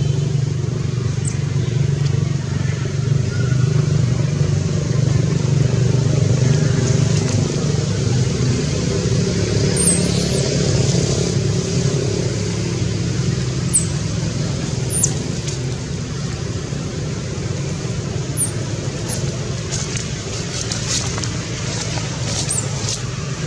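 Steady low drone of a motor running, with a few short, very high chirps scattered over it in the second half.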